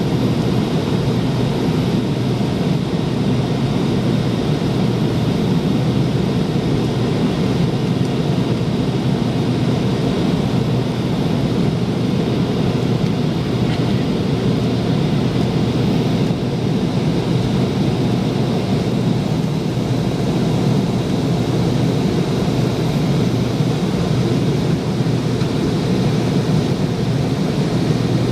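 Steady cabin noise of a McDonnell Douglas MD-88 airliner: the rumble of its rear-mounted Pratt & Whitney JT8D turbofan engines and airflow, heard from a rear seat. The noise holds even throughout, with no spool-up or change.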